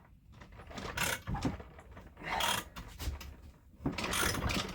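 Spark plug thread repair tap being turned into a cylinder's spark plug hole, cutting new threads: a few short creaking, scraping strokes about a second apart as the tool is forced round, very hard to turn.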